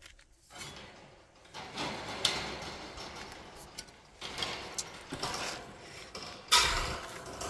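Wood-framed wire-mesh garden gate being unlatched and moved, with its wire loop latch and mesh rattling and scraping. A single loud clank comes about six and a half seconds in.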